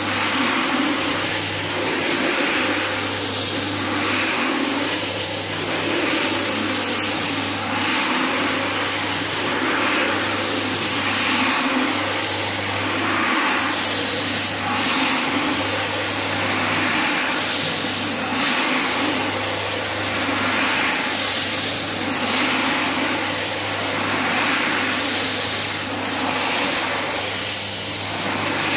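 Single-disc rotary floor scrubber running steadily with a low motor hum as its brush scrubs a soapy, wet rug. A wet swishing swells and fades about every second and a half as the machine is swept back and forth.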